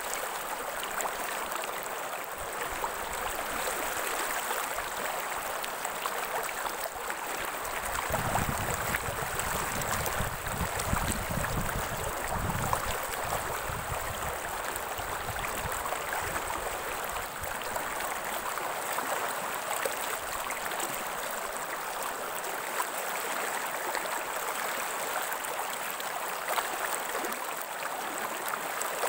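Running water of a stream, a steady even rushing, with a deeper rumble joining in for about ten seconds from around eight seconds in.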